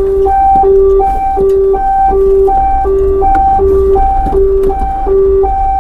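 Ambulance hi-lo siren heard from inside the cab: a low and a high tone alternate steadily, each pair lasting about three-quarters of a second. Under it is the low rumble of the van's engine and the road.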